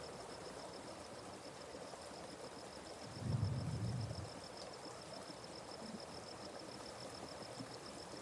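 Faint, steady flow of a forest stream with an insect trilling a high, rapidly pulsing note throughout. About three seconds in there is a brief low rumble lasting about a second.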